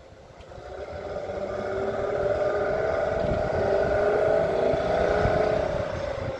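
An engine's pitched hum swells over about two seconds, holds, then fades with its pitch dipping slightly near the end, over a low rumble.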